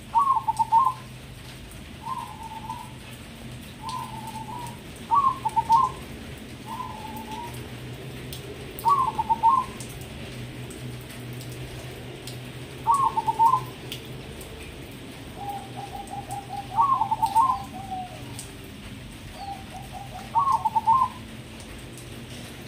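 Perkutut crossing, a crossbred zebra dove, cooing: six loud, rolling coo phrases roughly every four seconds, with quieter, lower coos in between.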